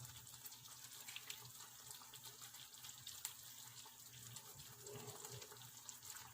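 Near silence: a faint steady hiss with light scattered crackles.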